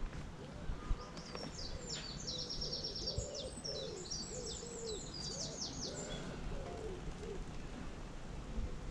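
Wild birds singing: a rapid, high trilled song that lasts a few seconds, over a run of lower repeated cooing notes.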